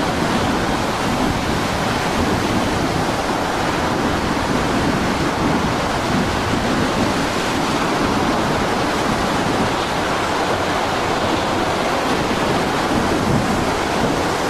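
Storm surf and wind: a steady rush of heavy breaking waves around a small boat.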